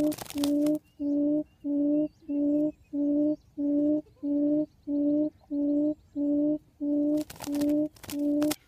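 Buttonquail giving a long, steady series of low hoots, about two a second, each on one even pitch: the booming call used to lure other buttonquail to the trap. A noisy rustle cuts in near the start and again near the end.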